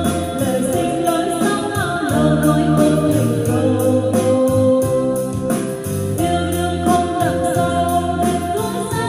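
A woman singing into a handheld microphone over a karaoke backing track, both played loud through a portable karaoke speaker.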